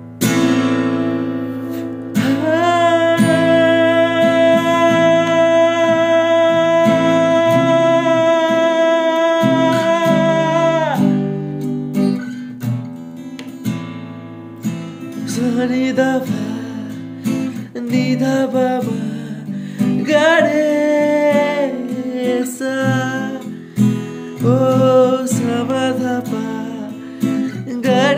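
Acoustic guitar strummed in a steady rhythm through the chords A, G, F and E, with a man singing along. A long held sung note starts about two seconds in and falls away about eleven seconds in. Shorter sung phrases follow from about fifteen seconds.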